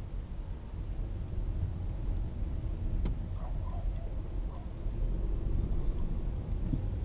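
Low, steady engine and road rumble heard inside the cabin of an Audi A3 Sportback with the 1.4 TFSI turbo four-cylinder, driving slowly, with a single click about three seconds in.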